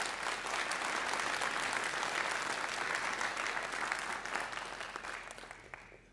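Large audience applauding, many hands clapping in a dense, steady patter that thins out near the end.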